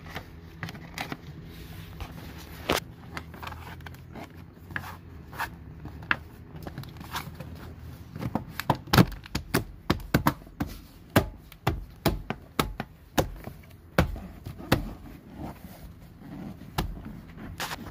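Plastic door-sill trim panel being pressed and snapped back into place by hand: a run of sharp clicks and knocks, thickest in the middle, over a low steady hum that fades about halfway.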